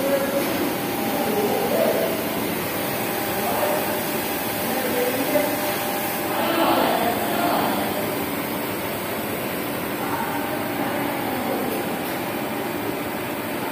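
Steady hum and hiss of an automatic linear TIG seam welding machine at work, its torch arc lit along the seam. Faint voices come through in the background, most clearly a little past the middle.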